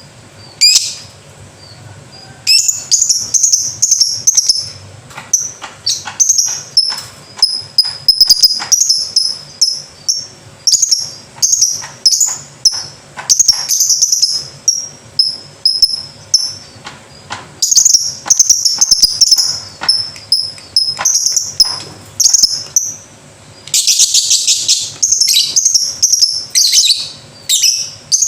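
Lovebird chattering in long runs of high, shrill chirps, bursts following one another with short breaks; a single call comes first, and the chatter grows harsher and denser near the end.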